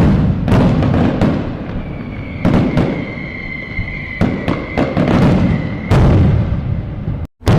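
Fireworks going off in a rapid series of sharp bangs, each trailing into a low rumble. A steady whistling tone holds through the middle. The sound cuts out abruptly for an instant near the end before another bang.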